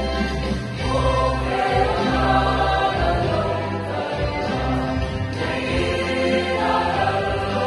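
Large mixed church choir singing a choral piece in parts, over a keyboard accompaniment whose sustained low notes run underneath. The voices come in about a second in and swell again near the end.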